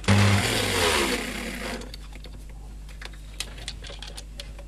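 Old electric drill run briefly for under two seconds, its motor whirring and then winding down, followed by a few faint clicks of the drill being handled.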